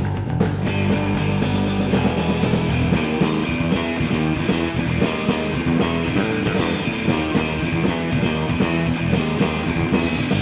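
Instrumental rock track with guitar and drums and no vocals, playing steadily.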